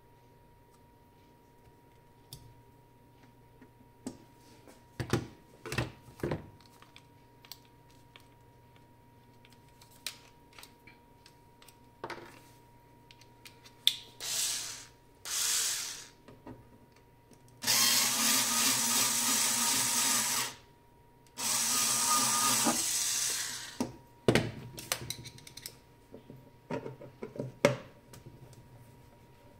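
Cordless electric screwdriver running in short runs, backing out the casing screws of a diathermy unit: two brief runs, then two steady runs of a couple of seconds each. Scattered clicks and knocks from handling the screws and tool come before and after.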